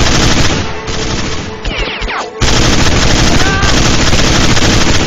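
Sustained automatic gunfire in a dense, continuous barrage that breaks off for a moment about two and a half seconds in, then starts again.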